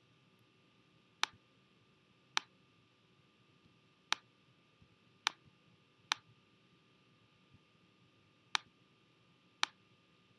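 Computer mouse button clicking: seven sharp single clicks at uneven intervals, one to two and a half seconds apart, over faint room tone.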